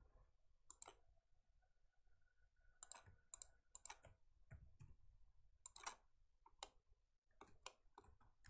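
Faint, irregular clicks of a computer mouse and keyboard keys.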